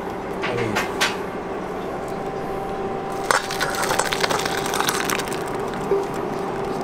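A spatula knocking and scraping against a metal pan as simmering diced fruit and its liquid are poured into a stainless-steel bowl: a few sharp clicks about half a second in, then a busy run of scrapes, clinks and pouring about three seconds in. A steady electric hum runs underneath.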